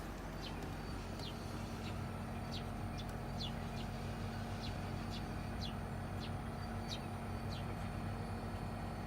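Mitsubishi Electric Kirigamine MUZ-BXV253 inverter air-conditioner outdoor unit running with a steady low hum. Short, high, falling chirps come over it about once or twice a second.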